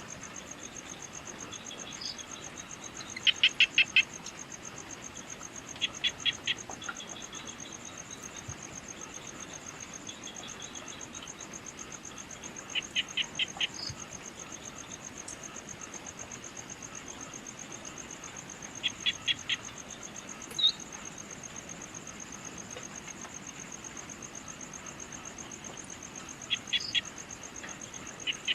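Evening insect chorus: a steady, fast high-pitched cricket-like trill, over which an animal repeatedly gives short calls of four or five quick notes every few seconds, with a few single short chirps in between.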